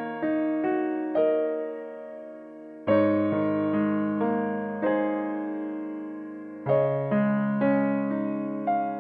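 Slow, gentle piano music: chords and notes struck one after another, each left to ring and fade before the next.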